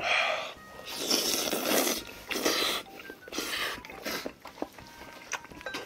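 A person panting through the mouth from the burn of very spicy tteokbokki, with four hissing breaths in and out over about four seconds. After that come quieter small clicks of chewing and chopsticks.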